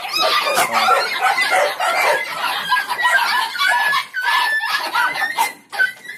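Many Indonesian village dogs barking, yelping and whining over one another, with a few drawn-out high whines in the middle, excited and impatient as they wait to be fed.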